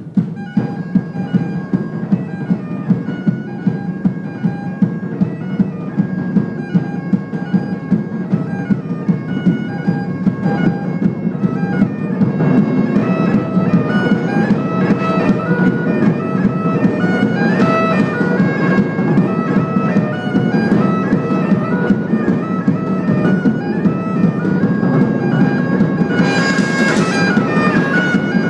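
Bagpipes playing a melody over their steady drones, with large barrel drums beating along about twice a second; the drumming fills out and gets louder about twelve seconds in.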